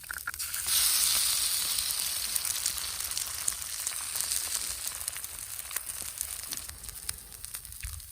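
Food sizzling in a hot pan. A loud sizzle starts suddenly about a second in, as if the food has just gone into the hot fat, then slowly settles to a quieter sizzle with small crackles and pops.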